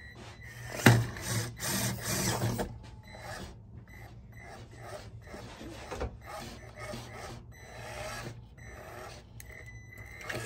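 Traxxas TRX-4M mini RC crawler climbing over the course: its small electric drivetrain whirs in short spurts while the tyres and chassis scrape and rub over the obstacles. The scraping is loudest from about one to two and a half seconds in, then continues more softly in short bursts.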